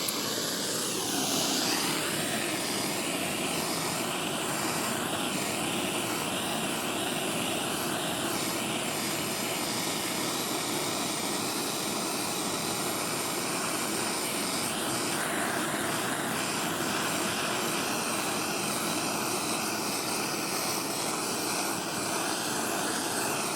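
MAP gas torch burning with the gas turned up, a steady rushing hiss that starts abruptly and holds at an even level.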